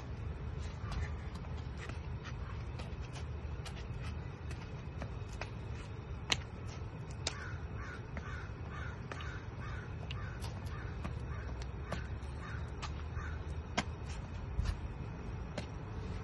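A bird giving a run of short, evenly spaced calls, about two a second, from about seven seconds in to about thirteen, over a steady low rumble and scattered sharp taps.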